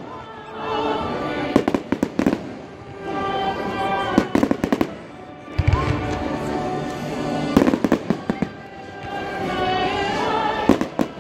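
Fireworks going off in rapid clusters of sharp cracks, four volleys a few seconds apart, over live orchestral music, with one deep boom about five and a half seconds in.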